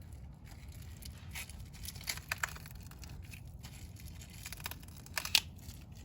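Scattered small clicks and scrapes of a screwdriver prying at a stiff plastic door-handle hinge that won't pop off, with a sharper click about five seconds in.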